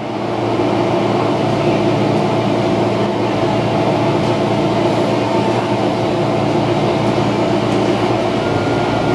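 Interior of an MTR Metro-Cammell electric train standing with its doors closed: a steady hum from the onboard equipment, with several held tones. Near the end a higher steady whine comes in as the train's traction equipment starts up to pull away.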